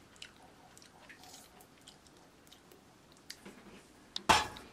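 Quiet chewing of mandarin orange segments, with faint small clicks. Near the end comes one short, loud burst of noise.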